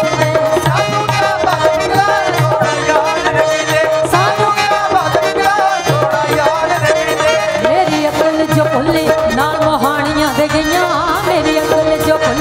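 Two women singing a Punjabi Sufi song live, with drum and keyboard accompaniment.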